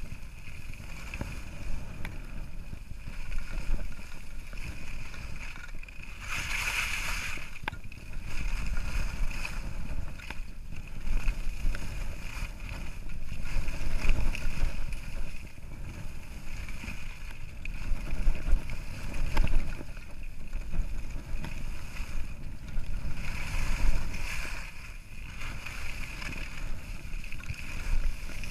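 Wind noise on an action camera's microphone during a ski run, with the hiss of skis sliding over snow. The hiss swells twice, about a third of the way in and again near the end.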